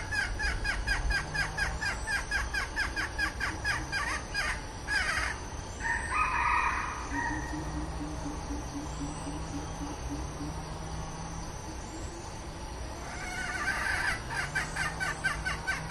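Red junglefowl hen giving her rapid 'toi' clucking call, several clucks a second, which stops after about four seconds and starts again near the end. A louder call of about a second comes around six seconds in.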